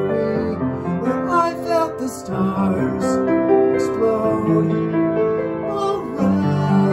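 Upright piano played in a bright pop accompaniment, with a man singing along.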